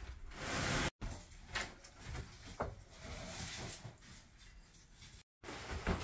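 Knocks, scrapes and rustling as heavy wooden bed-frame pieces with built-in drawers are handled and fitted together, breaking off abruptly twice.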